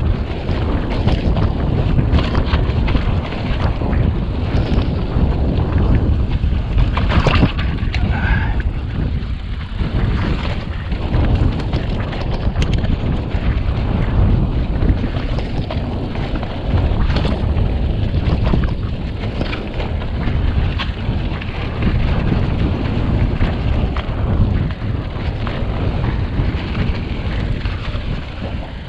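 Mountain bike descending a rough, rutted dirt trail: wind buffeting the microphone, with the bike rattling and the tyres knocking over bumps throughout.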